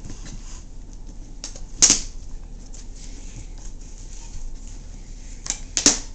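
Dogs playing around a hard box on carpet: scattered light clicks and scuffs, with a sharp knock about two seconds in and two more knocks in quick succession near the end.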